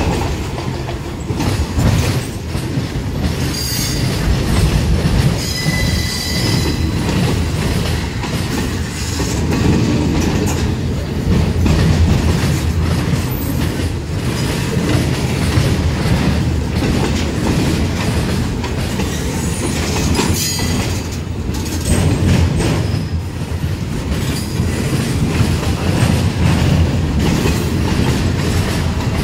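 Loaded freight cars rolling past: a steady, loud rumble of steel wheels on rail, with clacking over the rail joints. Thin high wheel squeals come a few seconds in and again about two-thirds of the way through.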